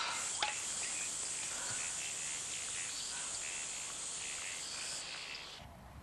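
Bush ambience of insects chirring steadily at a high pitch, with scattered short high chirps. It cuts off abruptly near the end.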